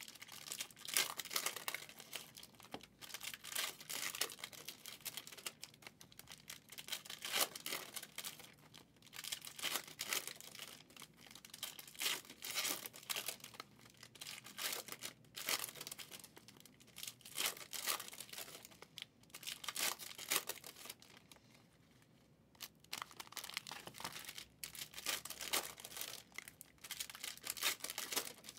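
Prizm football card packs being opened and handled: foil wrappers crinkling and tearing, and cards rustling as they are flipped through, in a run of short irregular bursts with a brief lull a little before the end.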